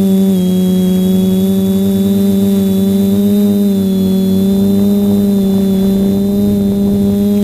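Electric multirotor drone's motors and propellers running in flight: a loud, steady hum with a few small dips in pitch as the throttle changes.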